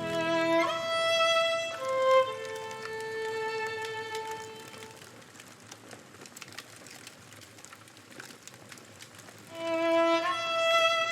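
Slow violin music: a few long held notes, one with vibrato, fading into a lull in which faint campfire crackling is heard; the violin comes back in near the end.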